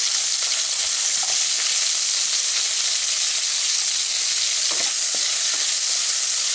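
Sliced bitter gourd sizzling steadily as it fries in hot mustard oil in a kadai. A few light knocks about five seconds in, as it is stirred with a wooden spatula.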